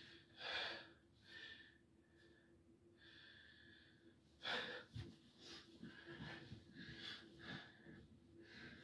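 A person breathing heavily and out of breath from exertion, with sharp breaths about half a second in and again about four and a half seconds in.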